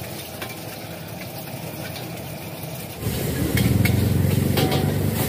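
Egg sizzling in a hot carbon-steel wok over a gas burner. About three seconds in it gets louder, with a low steady rumble and a few sharp clanks and scrapes of a metal spatula against the wok as the egg is stirred.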